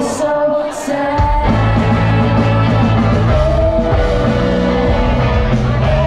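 Live rock band with electric guitars and a singer playing through a concert PA, heard from the audience. The low end thins out just after the start, then the full band with bass and drums comes back in about a second and a half in.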